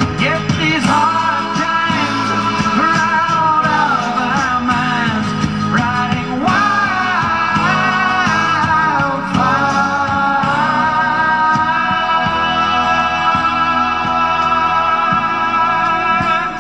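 Music: a slow soft-rock ballad with guitar and keyboard. A wavering lead melody glides through the first half, and long held notes take over in the second half.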